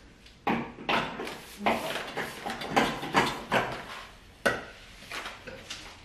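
Metal curtain rod carrying a roll of backdrop paper being set into its wall brackets: a run of irregular knocks, clinks and paper rustles, with one sharper knock about three-quarters of the way through.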